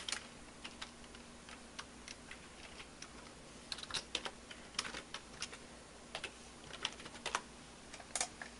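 Computer keyboard being typed on: scattered single keystrokes at first, then quicker runs of keys about four seconds in and again near the end. A faint steady low hum runs underneath.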